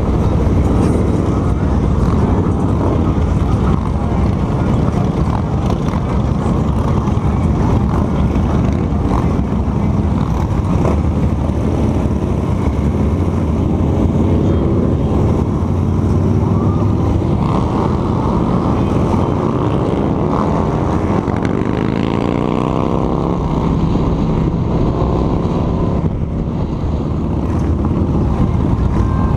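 Cruiser motorcycle running at road speed in a group of motorcycles, its engine sound mixed with wind rush. About two-thirds of the way in, an engine note rises over a couple of seconds as the bike accelerates.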